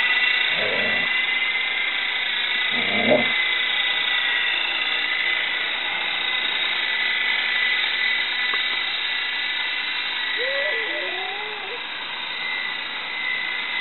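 Electric Lama V3 RC helicopter flying, its small electric motors and coaxial rotors giving a steady high-pitched whine.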